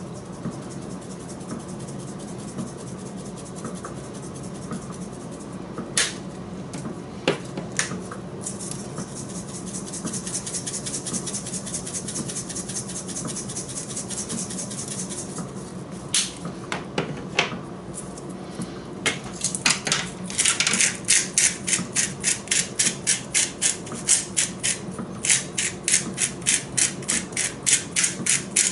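Dry seasoning being shaken from a spice jar into a glass bowl with a steady hissing rattle, with a few knocks and clicks as jars are handled; then a hand-twisted spice grinder grinding in quick scraping strokes, about four a second, through the last third.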